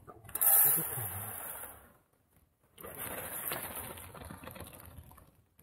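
Uncooked rice poured from a plastic bag into an aluminium mess tin: a rush of grains hitting the tin in two pours, the first louder and about two seconds long, the second steadier after a short pause.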